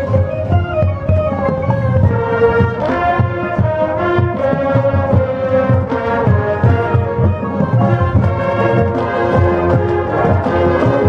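High school marching band playing its field show: the brass section holds sustained chords while the drums and percussion strike underneath.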